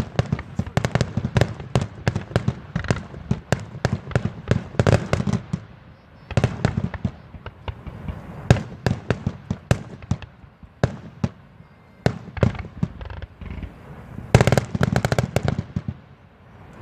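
Aerial fireworks going off in a rapid series of bangs and crackles, several a second, thinning out in the middle and bunching into a dense volley about fourteen seconds in.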